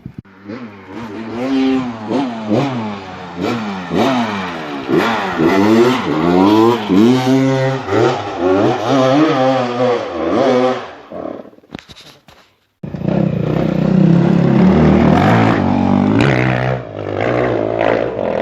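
Dirt bike engine revved hard, its pitch rising and falling again and again as the throttle is worked on a steep climb. It cuts off about 12 seconds in, and after a short silence a motorcycle engine runs loud and steady under heavy throttle.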